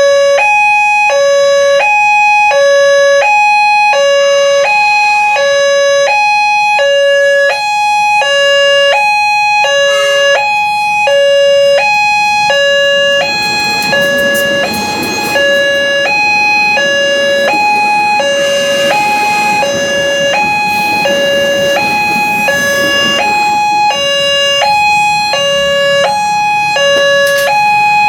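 Electronic level-crossing alarm at a railway crossing, sounding two alternating tones, high and low, each held about half a second. From about halfway, a broad rushing noise joins it, as a train passes through the crossing.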